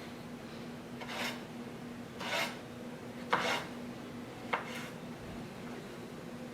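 Vie Belles 5.5-inch Damascus utility knife slicing through lemon rind and flesh into wedges: four short rasping cuts about a second apart, the last two starting with a sharp tap of the blade.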